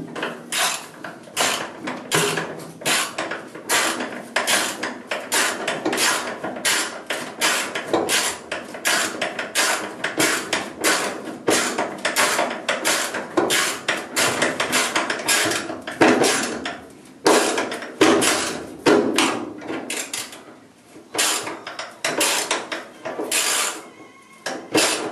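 Hand ratchet on a long extension clicking in quick runs, about three or four clicks a second with a few short pauses, as it drives self-tapping hex-head screws by hand.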